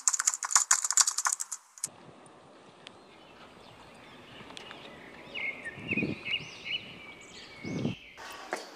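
Keyboard-typing sound effect: a quick run of sharp key clicks for about two seconds. After it comes a faint outdoor hiss with a few short high chirps and two soft low thumps.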